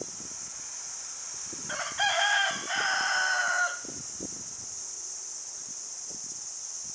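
Rooster crowing once, a single crow of about two seconds that starts about two seconds in, with a short break partway through before the last long held note.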